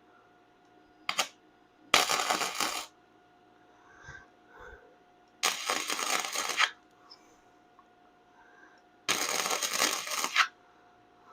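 Arc welding on the steel frame of a 1970 Triumph TR6: three separate crackling bursts, each about a second long, tacking a patch section in. A short click comes just before the first burst, and a faint steady hum runs underneath.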